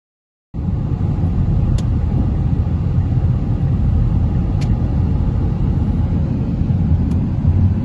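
Steady low road and engine rumble heard inside the cabin of a moving car, starting abruptly about half a second in, with three faint ticks over it.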